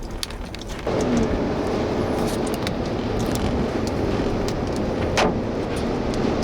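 Large hailstones striking a car's body and glass as scattered sharp bangs, one loud strike about five seconds in. Underneath, the car's engine and road noise steps up about a second in.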